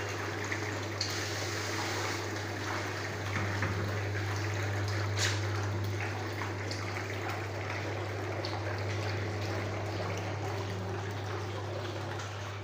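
Water running steadily from a pedicure bowl's hand sprayer into the basin, filling it, over a steady low hum.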